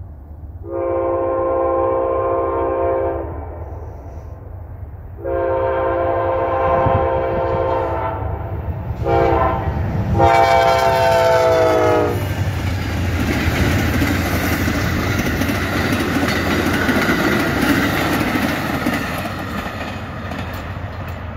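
Amtrak Lake Shore Limited passenger train's horn sounding the grade-crossing signal as a chord: two long blasts, a short one and a final long one. The train then passes the crossing with a steady rushing noise of wheels and cars.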